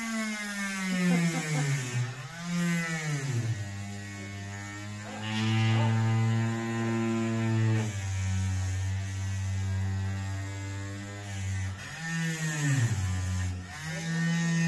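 Electric heat gun running with a steady motor hum that sags in pitch and recovers a few times.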